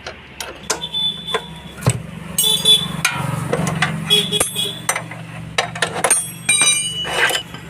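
Steel tools and motorcycle parts clinking and ringing as a spanner is worked on the wheel's axle and brake drum nuts: a run of sharp metallic clicks, several leaving short high rings, over a steady low hum.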